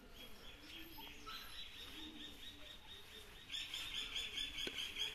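A bird chirping in a fast, even run of high notes, about five a second, fainter at first and growing louder about three and a half seconds in.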